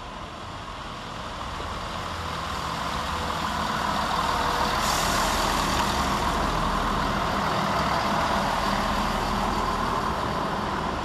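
Class 168 diesel multiple unit arriving at a station platform, its diesel engines and wheels on the rails growing louder as it draws alongside and runs past close by. There is a short hiss about five seconds in, and the train begins to fade near the end.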